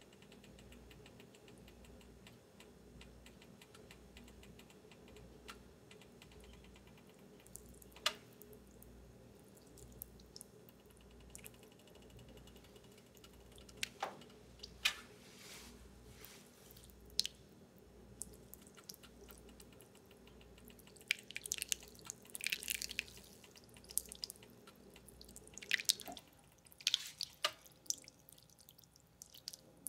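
Bialetti Mini Express moka pot heating on an electric coil burner: scattered sharp pops and ticks, then, in the last third, frequent crackling, hissing sputters as the water comes to the boil and the coffee starts to push up. A faint low hum sits underneath and fades near the end.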